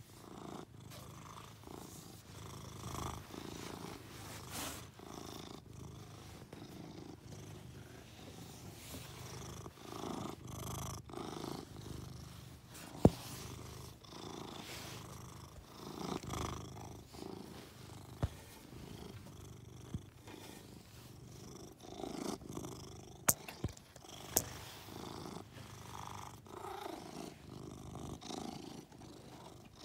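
Domestic cat purring close up, the purr swelling and fading in a slow, uneven rhythm. A few sharp clicks cut through it, the loudest about 13 seconds in and a cluster a little past the 23-second mark.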